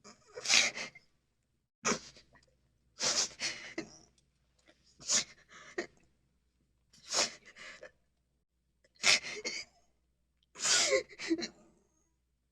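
A woman crying, sobbing in short breathy, gasping bursts that come about every one and a half to two seconds, seven in all.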